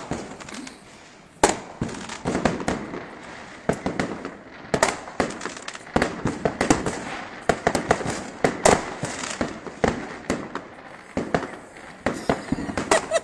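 Fireworks going off in a rapid, irregular barrage of sharp bangs and crackles. A loud bang comes at the very start and another about a second and a half in, then the bangs come thick and fast.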